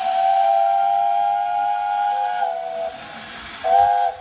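Steam locomotive whistle over a steady hiss of steam: one long blast that drops slightly in pitch before it stops, then a short blast near the end.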